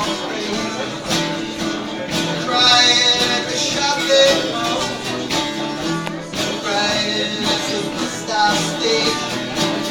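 A band playing acoustic country-style music, with guitar.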